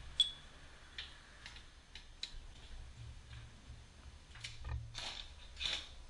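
Faint, scattered clicks and taps at uneven intervals from hand work at a car's front wheel, with a low workshop hum underneath.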